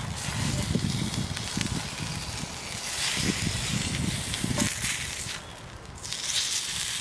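Rabbit searing in a frying pan over an open wood fire: a steady hissing sizzle with the fire crackling and bursts of low rumbling. The hiss drops out briefly about five and a half seconds in.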